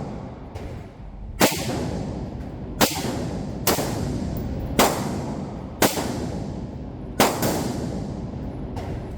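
Gunshots: six sharp shots at an uneven pace, roughly a second apart, each followed by a short ringing tail.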